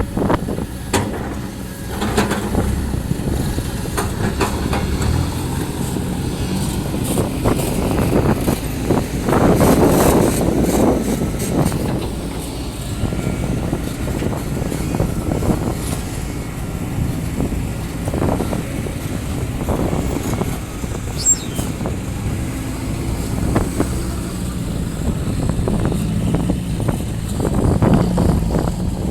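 Diesel engine of a hydraulic excavator working, running steadily and swelling louder under load about a third of the way in, again past the middle, and near the end, with occasional knocks.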